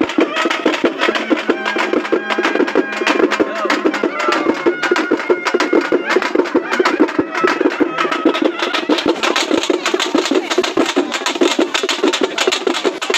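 Fast, dense processional drumming, struck beats packed close together in a steady driving rhythm, with crowd voices mixed in.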